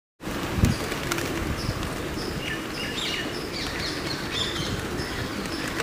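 Small birds chirping repeatedly over a steady background noise, with a low thump about half a second in.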